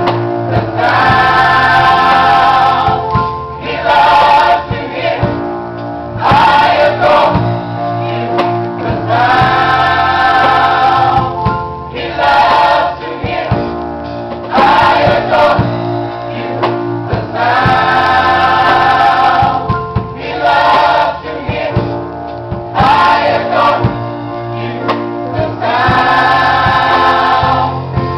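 Gospel choir singing in full voice over band accompaniment, in repeated phrases every few seconds.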